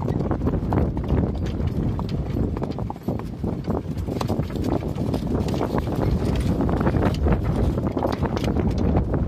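Hoofbeats of several horses moving together, an uneven run of clip-clops, with wind buffeting the microphone.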